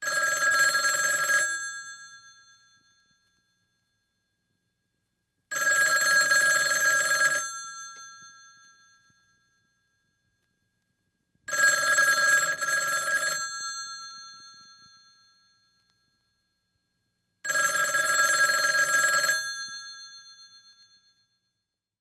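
Old-fashioned telephone bell ringing: four rings, each a little under two seconds long and about six seconds apart, with the bell tone ringing out after each one.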